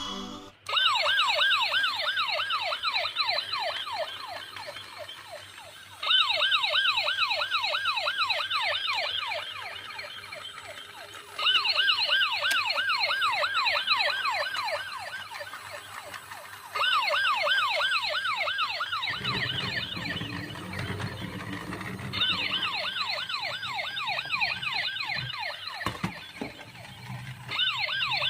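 Toy police car's electronic siren warbling fast, in repeated bursts of about five seconds, each starting loud and fading. A low rumbling noise joins about two-thirds of the way through.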